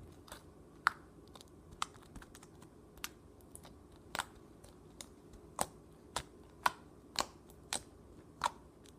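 Sticky homemade slime making sharp clicks and pops as it is poked and pulled off the fingers, about a dozen irregular clicks, coming closer together in the second half.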